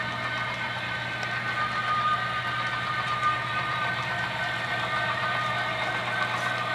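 Model diesel locomotive in Union Pacific paint passing with a train of boxcars. Its sound system plays a steady diesel engine drone with a high steady whine, under the rolling of the train on the track.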